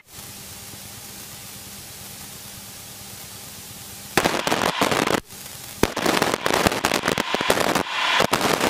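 Aviation radio heard through the headset intercom: a steady hiss, then about four seconds in, loud crackling static bursts with sharp clicks and no clear words.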